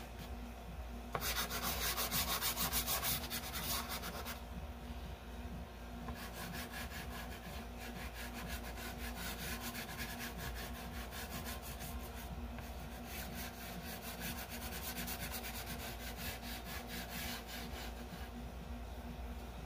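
Chalk pastel scratching over paper in quick back-and-forth strokes as a background is coloured in. The strokes are loudest from about one to four seconds in.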